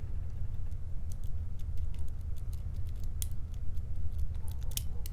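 Light metallic clicks and scrapes of a hook pick working the pin stacks of a custom challenge lock cylinder held under tension, as the picker feels for pins setting. The clicks are irregular and come thicker near the end, over a steady low rumble.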